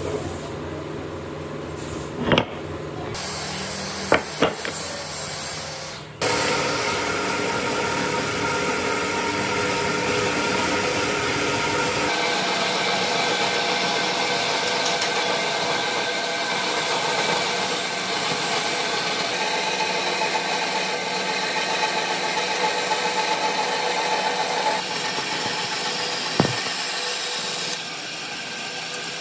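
A few knocks and clicks of the wood block being handled, then about six seconds in a band saw starts and runs steadily as it cuts through a hardwood block. A steady machine whine sounds with the rasp of the blade in the wood.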